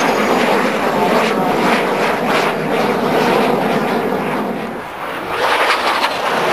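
Aermacchi jet trainer's engine noise as it flies a display pass overhead: a loud, steady rush that dips briefly about five seconds in, then comes back up.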